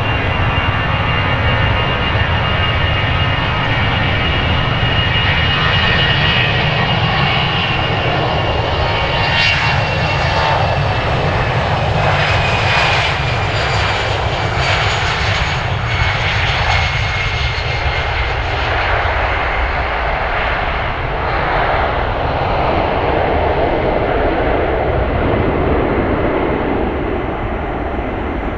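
Fixed-wing airplane engines running loud, a steady rumble carrying a high whine that slowly falls in pitch over about twenty seconds.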